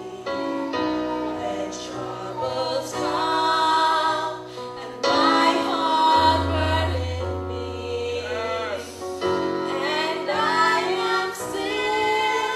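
Music: a choir singing a slow sacred song, several voices with vibrato over long held low notes.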